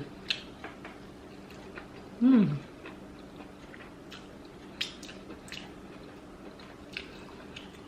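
Mouth sounds of someone eating fufu and egusi soup: soft chewing with scattered faint clicks, and a short 'mm' hum falling in pitch about two seconds in.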